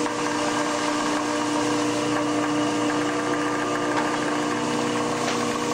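Ship's engine and deck machinery running with a steady hum, with a faint knock near the end.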